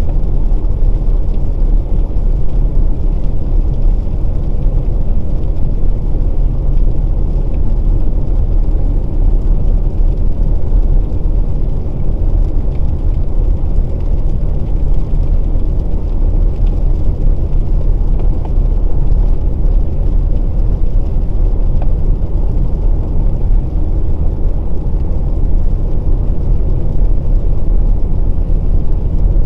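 2020 Volkswagen Passat Variant 1.6 TDI driving on a wet road: a steady low rumble of tyre and engine noise that holds level throughout.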